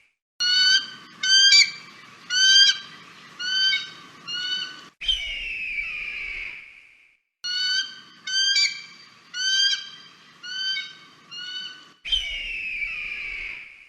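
An eagle calling: a run of about seven short, high, piping notes, then a longer falling screech. The pattern comes twice.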